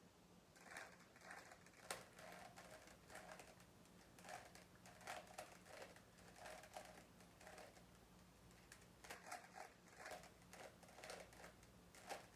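Faint plastic clicking of a Rubik's cube being turned, in quick runs of layer turns with a short pause near the middle, as the last layer is worked through toward the solve.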